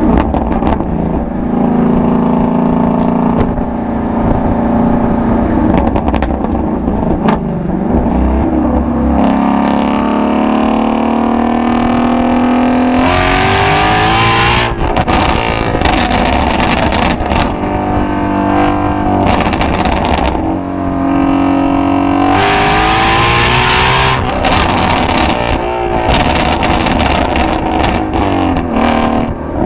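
Shelby GT350's 5.2-litre flat-plane-crank V8 and exhaust cruising, then pulling hard at wide-open throttle with a sharp rise in pitch about halfway through and again about two-thirds of the way in, broken by short drops between the two runs.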